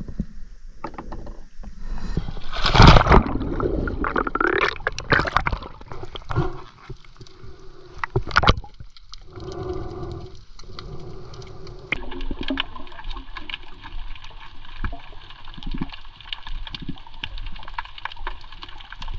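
Water splashing and gurgling around a kayak in uneven bursts, as of someone getting into the sea. About twelve seconds in, this gives way to a steadier layer of many faint ticks over a low hiss.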